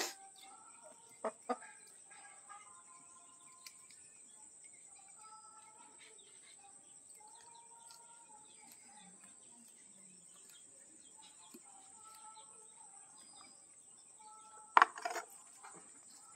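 Steady high buzzing of insects, with chickens clucking and other birds calling on and off. Sharp crackles from plastic grafting tape being handled come about a second in and again, loudest, about 15 seconds in.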